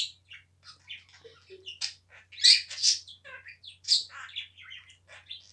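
Pet bird making a quick series of short, high chirps and calls, loudest about two and a half seconds in and again near four seconds.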